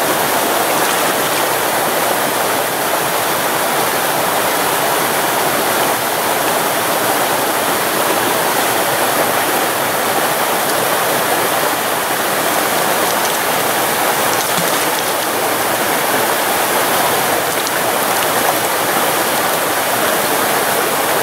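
Swift, shallow trout stream running past the wading angler: a loud, steady rush of moving water.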